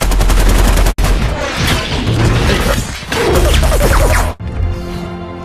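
Loud action-film battle sound mix: explosions and gunfire over an orchestral score, with a hard edit cut about a second in. Just past four seconds the effects fall away, leaving the quieter score.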